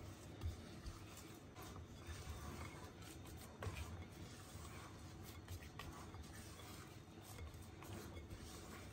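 A spatula folding stiff cookie dough with chocolate chunks in a glass bowl: faint, irregular squishing and scraping against the glass, with a couple of soft knocks.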